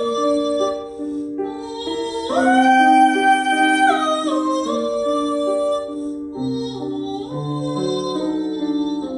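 Slow background music: a female voice sings long held notes over instrumental accompaniment.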